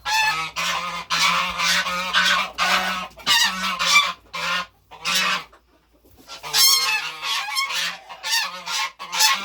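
Domestic geese honking: a quick string of harsh, repeated calls, pausing for about a second midway and then starting again.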